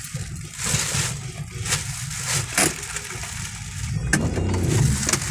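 Steady low rumble of a car driving slowly, heard from inside the cabin, with several brief louder swishes from motorcycles passing close outside the window.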